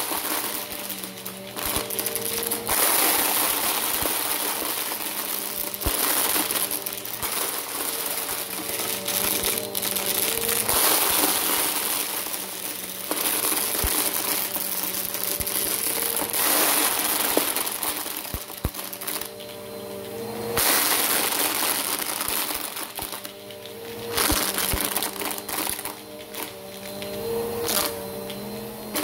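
Bissell Power Force Helix upright vacuum cleaner running over carpet and sucking up piles of small plastic cubes. The cubes rattle and crunch through the nozzle in repeated waves over the steady hum of the motor.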